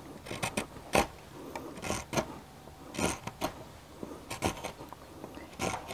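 Curved-sole spokeshave shaving the curved scarf of a damp, nearly quarter-sawn timber beam. It takes a series of short scraping cuts, about one a second, set light and working against the grain.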